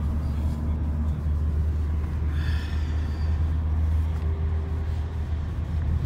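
Steady low rumble of a moving car's engine and tyres, heard inside the cabin.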